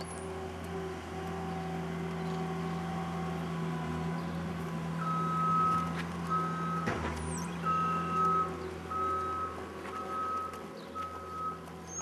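A vehicle's reversing alarm beeping at one steady pitch about once a second, starting about five seconds in, over a steady low hum.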